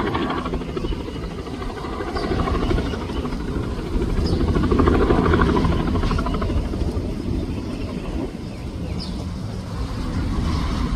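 Bell 206 helicopter's two-bladed rotor beating and its turbine running, really loud, swelling louder about four to six seconds in.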